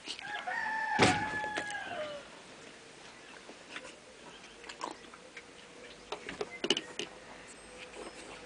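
A cane corso whining in a high tone for about two seconds, falling in pitch at the end, with a sharp knock about a second in. After that, scattered light clicks and taps.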